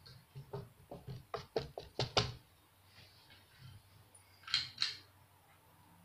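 Spinning ceiling fan blades slapping repeatedly against a hand held up in their path: a quick run of about eight knocks that come faster and louder over the first two seconds. Two short, sharper noises follow a couple of seconds later.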